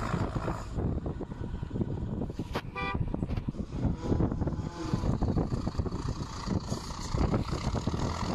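Heavy truck engine running, rough and low, with a short horn toot about three seconds in.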